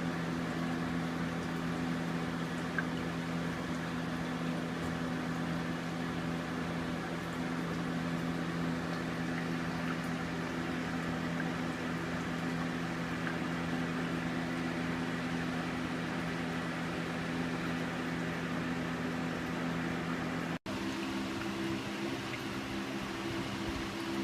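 Vivarium water pump running with water trickling, a steady hum beneath. The sound cuts out for an instant near the end and comes back with a slightly different hum.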